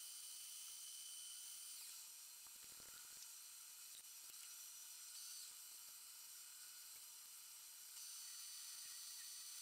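Faint, steady, high-pitched whine with hiss from a metal lathe turning and drilling an aluminium cylinder, heard at sped-up time-lapse speed. The whine dims about two seconds in and returns stronger near the end as the drill goes in.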